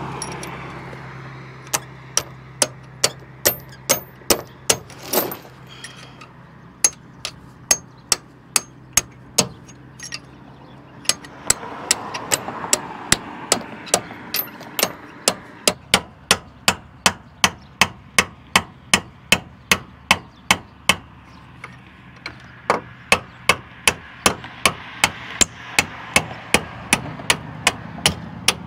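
Repeated sharp hammer blows, about two a second with a few short pauses, from hammering on a tow truck's boom and cylinder parts during a cylinder repair.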